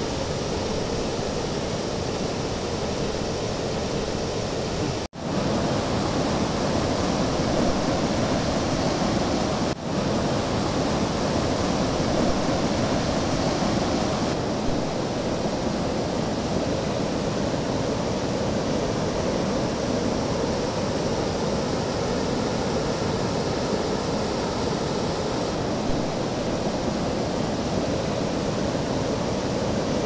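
Steady rushing of a river waterfall pouring over a rocky weir: an even wash of water noise that cuts out briefly twice, about five and ten seconds in.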